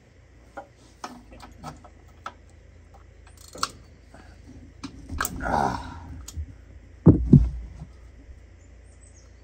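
Scattered light clicks and rustling of hand tools and a shop rag working around an ATV engine's oil drain plug. There is a noisier stretch around five to six seconds in and a short, louder low sound a little after seven seconds.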